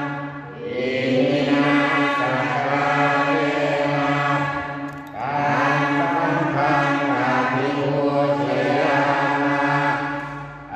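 Prayer chanting led by a man's voice into a microphone, in long drawn-out phrases that pause briefly for breath about half a second in, around five seconds in, and just before the end.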